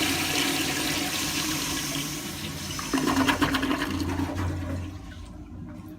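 Old American Standard toilet flushing: water rushing and draining away, with a fresh surge about three seconds in, then fading.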